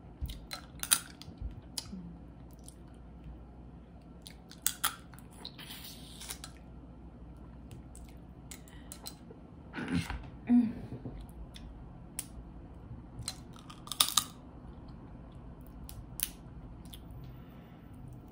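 Crawfish shells being cracked and peeled by hand close to the microphone: scattered sharp snaps and clicks, with chewing in between.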